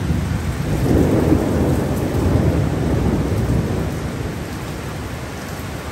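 Heavy driving rain with a rolling rumble of thunder that swells about a second in and slowly dies away over the next few seconds.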